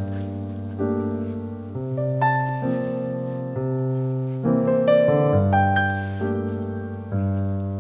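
Background piano music: slow chords held for a second or two, with single higher notes picked out above them.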